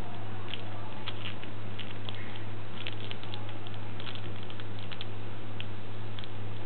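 Scattered light clicks and ticks from a thumb pressing the buttons of a small plastic infrared remote control, over a steady low hum.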